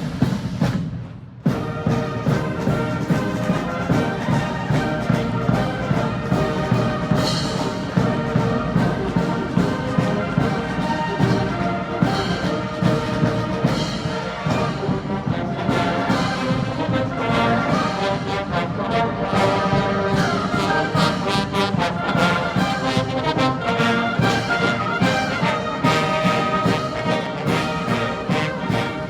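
Military band of brass, bugles and drums playing a march. It strikes up about a second and a half in after a brief pause, then plays continuously.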